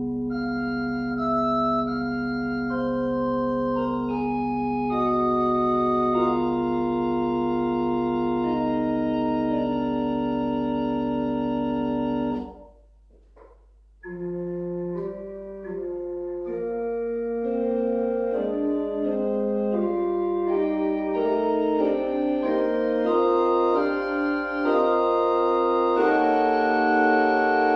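Pipe organ playing chorale preludes. Slowly changing held chords over a sustained low pedal note stop about halfway through. After a pause of about a second and a half, a second, busier prelude begins, with several lines of shorter notes moving against each other.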